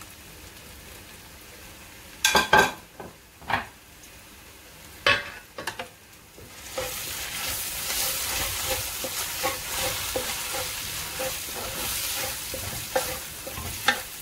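A wooden spatula stirring masala paste into frying onions in a metal uruli, with a few sharp knocks against the pot in the first half. About seven seconds in, the sizzling gets louder and holds steady as the spice paste fries in the oil on a low flame until the oil separates.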